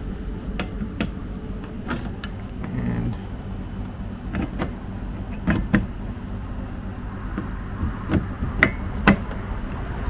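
Scattered sharp clicks and knocks as a van's wiper arm is handled and pushed back onto its spindle against the plastic scuttle cowl, over a steady low rumble. The loudest knocks come about five and a half, eight and a half and nine seconds in.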